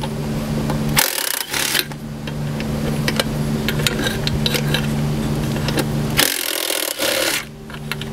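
Cordless impact running, its motor humming steadily as it backs out the throttle body's 10 mm bolts. Two short, harsher bursts break in, about a second in and again near the end.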